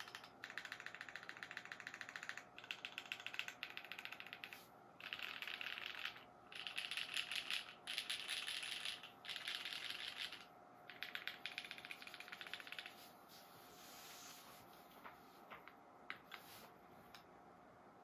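Mechanical keyboard with Kailh vintage black linear switches being typed on: fast keystrokes in bursts of a second or two with short breaks between them. For the last few seconds the keystrokes become sparse and quieter, single clacks now and then.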